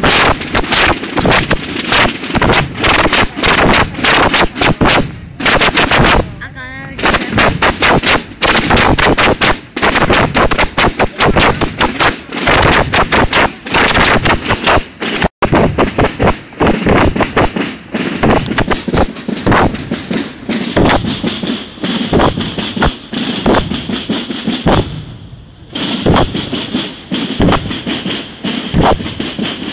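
Holy Week procession drums beating fast and without pause, loud, with brief lulls about six and twenty-five seconds in.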